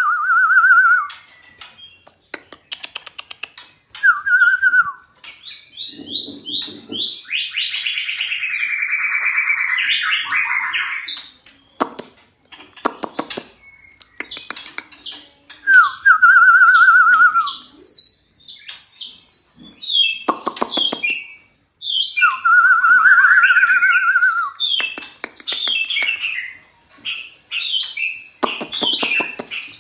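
A white-rumped shama (murai batu) singing a long, varied song: loud wavering trilled phrases that come back again and again, high short whistles, and sharp rapid rattling clicks between them.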